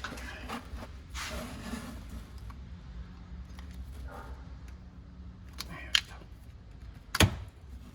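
Screwdriver working at the plastic latch of the antenna motor's electrical plug: scraping and small clicks, then one loud sharp click about seven seconds in.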